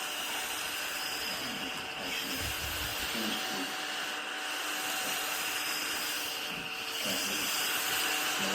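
Small battery-powered desktop vacuum cleaner running, a steady motor whir and airflow hiss.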